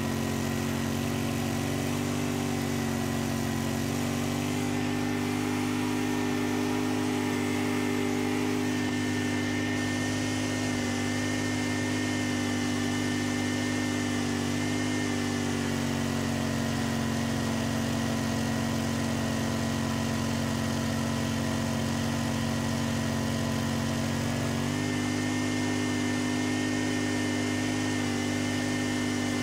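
Snowblower engine running steadily under load, its impeller throwing snow out of the chute as it cuts through deep snow. The engine note drops slightly a few seconds before the end.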